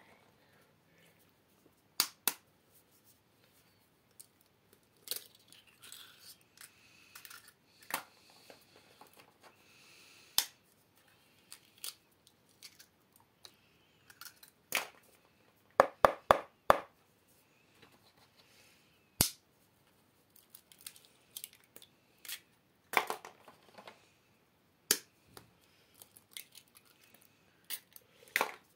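Eggs being tapped and cracked one at a time against the rim of a plastic mixing bowl: scattered sharp cracks and clicks, with a quick run of about five taps some sixteen seconds in.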